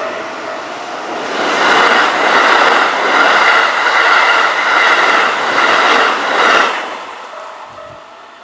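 A Keikyu Main Line train passing a level crossing at high speed: a loud rush of wheels and car bodies for about five seconds, which then drops away quickly as the train clears. A level crossing's warning bell rings faintly at the start.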